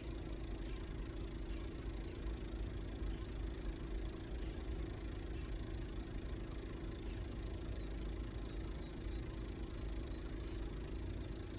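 A motor running steadily: a constant hum over a low rumble, with no change in pitch or level.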